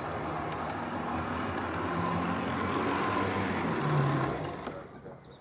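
Model train, a London Midland Class 170 multiple unit, running along the track and getting louder as it approaches, loudest about four seconds in, then falling away sharply near the end.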